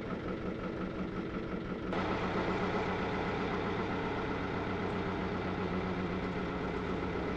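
Narrowboat's diesel engine running steadily at cruising speed, a low, even chugging that gets a little louder about two seconds in.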